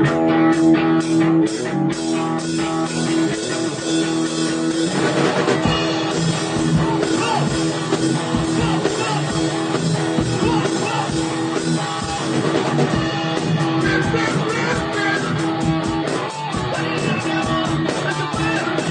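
Rock music: guitar playing, with drums and the rest of the band coming in about five seconds in.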